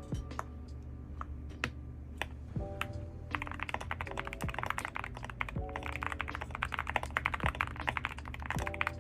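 Mechanical keyboard with AKKO Rosewood switches being typed on: a few scattered keystrokes, then fast continuous typing from about three seconds in. Background music plays throughout.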